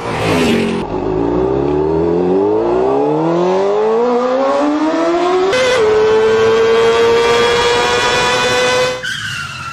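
Motorcycle engine accelerating, its pitch climbing steadily for about five seconds, then holding at a high steady pitch before dropping away near the end.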